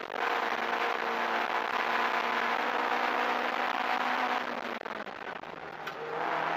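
Mk1 Ford Escort 1600 race car engine heard from inside the cabin, running hard at high revs, with a brief dip right at the start. About four and a half seconds in the engine note falls and quietens, then picks up again near the end.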